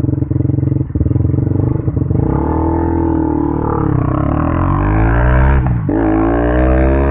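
KTM Duke 200's single-cylinder four-stroke engine through an Akrapovic exhaust, pulling away from a stop. The revs climb steadily, drop sharply at an upshift about six seconds in, then climb again.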